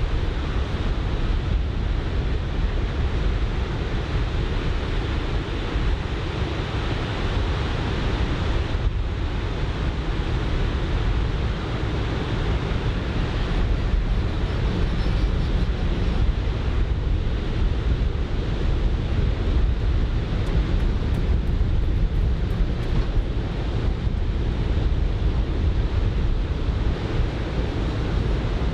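Onshore wind buffeting the microphone over the steady wash of breaking surf.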